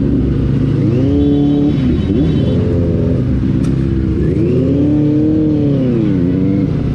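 Superbike engine revved up and let fall three times, its pitch climbing, holding and dropping back; the last rev, held for about two seconds, is the longest.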